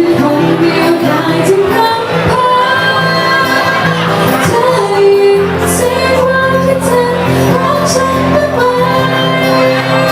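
Live band playing a Thai pop song with a woman singing the lead, over a steady bass line and cymbal hits.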